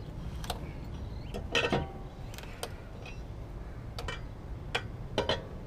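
Lug wrench on a car wheel's lug nuts as they are broken loose: a handful of sharp, irregular metal clicks and clanks, loudest a little after a second and a half in and again near the end.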